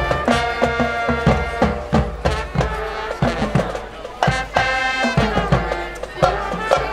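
High school marching band playing: a brass melody from trumpets and trombones over a steady beat from marching bass, snare and tenor drums, with cymbals.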